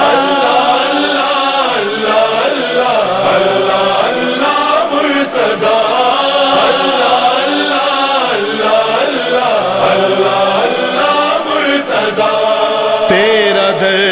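Men's voices chanting a drawn-out, wavering devotional refrain of an Urdu manqabat, held continuously with musical backing.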